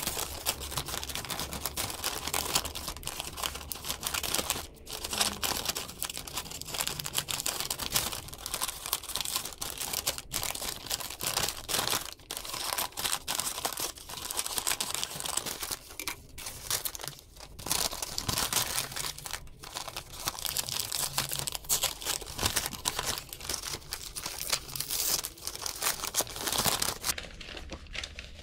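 Scratchy scraping of a hand tool worked over a wooden board, running on with a few brief breaks and stopping just before the end.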